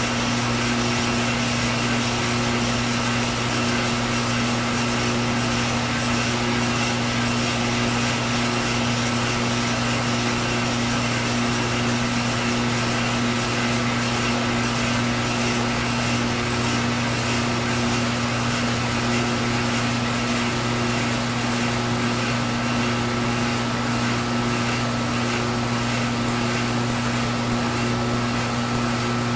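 A machine tool and a shop vacuum running steadily through a cutting pass on a glass stern tube: a constant hum with a slow, even pulse, over a broad hiss.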